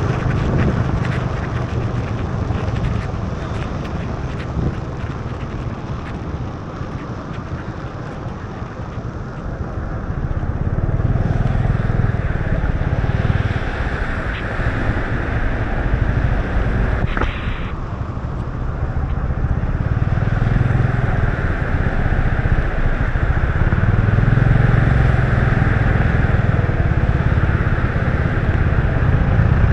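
Motor scooter riding on a rain-soaked road: the engine runs steadily and swells and eases with speed, under a constant hiss of tyres on wet tarmac, rain and wind. A short beep sounds a little past halfway.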